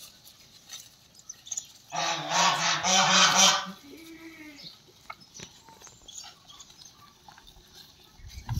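Goat bleating: one long, wavering bleat about two seconds in, then a shorter, fainter call.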